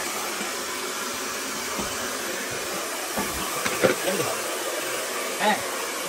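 Steady rushing air noise of a small blower motor running at constant speed.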